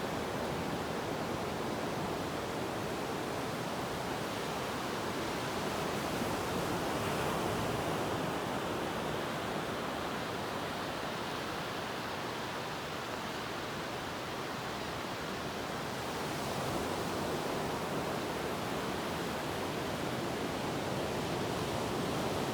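Ocean surf washing continuously, a steady rush of breaking waves that swells slightly twice without ever dropping away.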